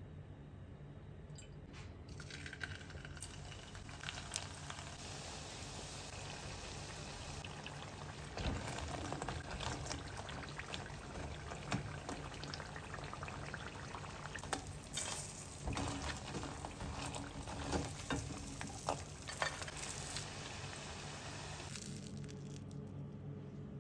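Potato sticks frying in hot oil: a steady sizzle with scattered crackles and pops, starting about two seconds in and cutting off near the end.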